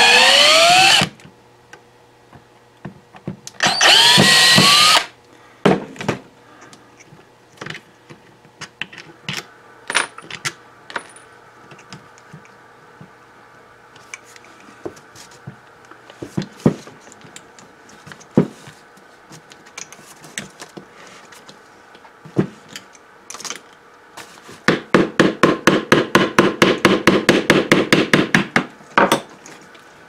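Cordless drill backing out the screws of a ShurFlo RV water pump's pressure switch housing: two short runs, just at the start and about four seconds in, the motor's whine rising in pitch as each screw frees. Then scattered clicks and clatter of screws and plastic parts being handled, and near the end a rapid rattling series lasting about four seconds.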